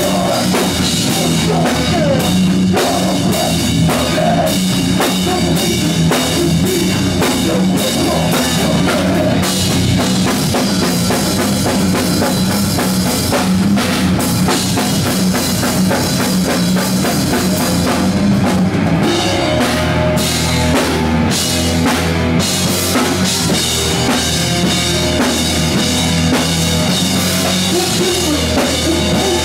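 A rock band playing live and loud, with the drum kit, its bass drum and cymbals, to the fore.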